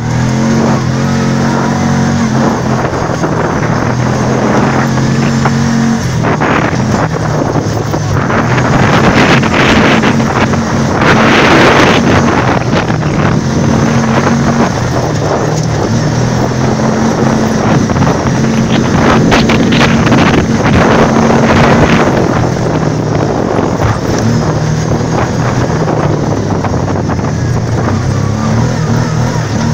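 ATV engine running as it drives along a dirt trail, its note shifting up and down in steps with the throttle, under a rush of wind on the microphone that swells twice, about ten and twenty seconds in.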